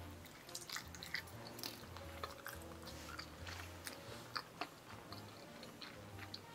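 A person chewing a soft gummy candy block with mouth closed: faint, irregular small clicks.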